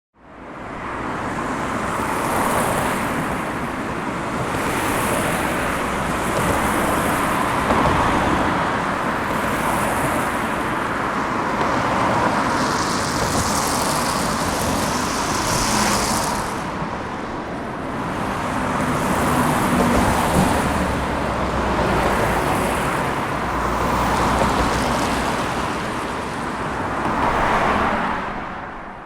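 Highway traffic: a steady stream of cars and trucks passing, the tyre and engine noise swelling and fading as each vehicle goes by. It fades in at the start and fades out at the end.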